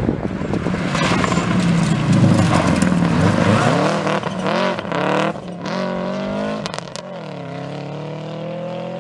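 Rally car engine at full throttle. It comes close and passes, then accelerates away through several gear changes, the pitch climbing and dropping sharply at each shift. It grows quieter as the car moves off into the distance.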